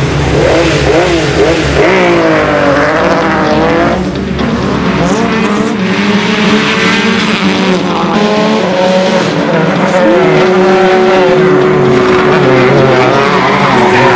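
Rally car engine revving hard on a tarmac stage, its pitch climbing and dropping again and again through gear changes, with some tyre squeal.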